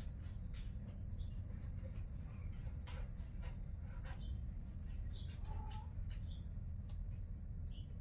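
Birds chirping in short, scattered calls over a steady low background rumble.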